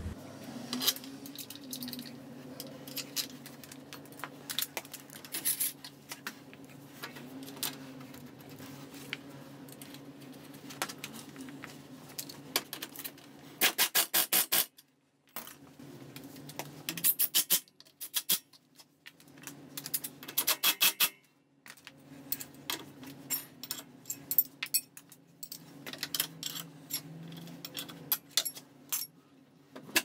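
Metal hand tools clinking and scraping against the scooter's rear-wheel parts as a wrench works the fasteners, with scattered single clicks. About halfway through, and twice more a few seconds later, come short bursts of rapid, evenly spaced clicking. A steady low hum runs underneath.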